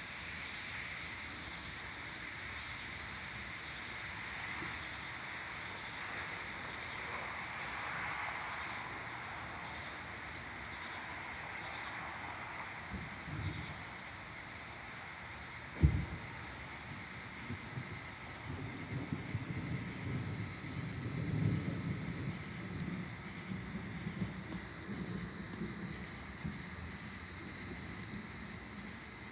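Night insects trilling in a steady, finely pulsing chorus. A low rumble of distant thunder builds in the second half, and a single sharp click comes about halfway through.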